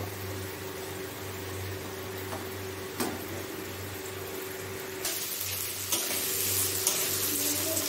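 Hot oil frying quietly in a kadai over a steady low hum, with a light knock about three seconds in. About five seconds in, it turns to louder sizzling as sliced onions fry, with a spatula stirring and scraping the pan.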